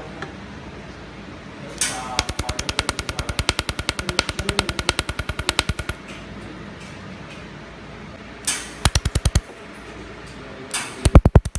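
Handheld laser welder firing in rapid pulses on stainless steel: trains of sharp cracks at about ten a second, one run of several seconds, a short burst, then a new run near the end.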